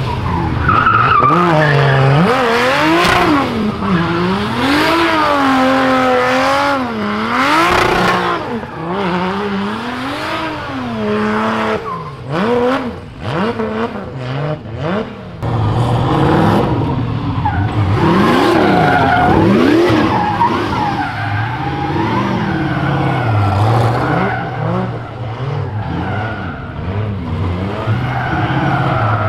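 Drift cars doing donuts: engines revving hard up and down over and over, with tyres squealing and skidding on tarmac.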